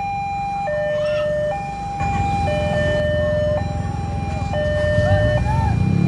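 Railway level-crossing warning alarm sounding, a high and a low electronic tone alternating about once a second, warning that a train is approaching with the barrier down. Under it, a low engine rumble grows louder near the end.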